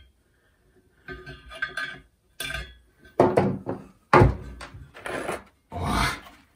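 Metal tools and parts clattering and knocking on a workbench as a loudspeaker is being taken apart, a series of separate clanks with the loudest about four seconds in.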